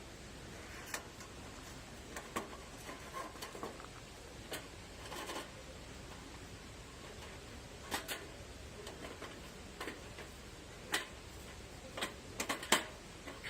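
Light metal clicks and knocks of a flat-pack wood stove's parts being handled and fitted together, irregular and spaced out, with a quicker cluster of sharper knocks near the end.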